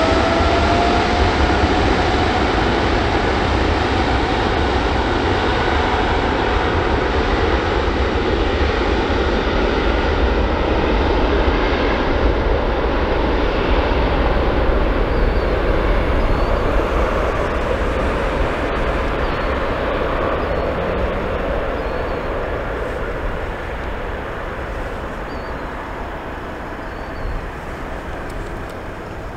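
Boeing 777F freighter's twin GE90 turbofan engines at takeoff power during the takeoff roll. The engine whine rises in pitch over the first couple of seconds as the engines spool up, then the jet noise holds steady and slowly fades as the aircraft accelerates away down the runway.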